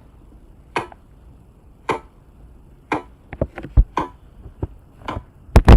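Recorded everyday sound played back through a sound-visualising program: sharp clicks or knocks about once a second, with a quicker run of clicks in the middle and a louder double knock near the end.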